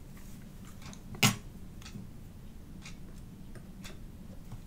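Small hand tools, soldering iron and metal tweezers, handled on a workbench: one sharp click about a second in, then a few faint ticks, over a faint steady hum.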